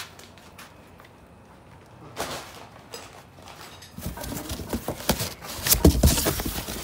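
A few isolated knocks, then from about four seconds in a dense run of knocks and clatter, loudest a little before the end.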